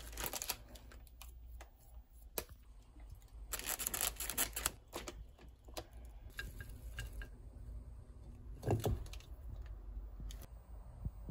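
Plastic food packaging crinkling and rustling as it is handled, with scattered light clicks and taps and one duller thump nearly nine seconds in.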